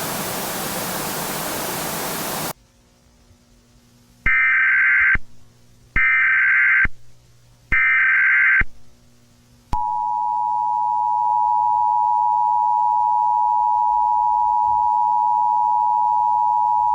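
Emergency Alert System broadcast: a burst of static hiss for about two and a half seconds, then three short bursts of the warbling SAME header data, then the steady two-tone attention signal sounding like a loud, continuous electronic drone.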